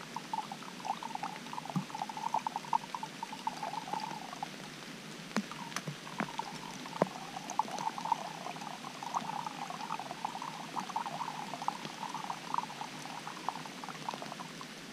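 Water squeezed from a soft bottle through an Aquamira filter, trickling into a container in two runs with a short pause between them, broken by a few small clicks.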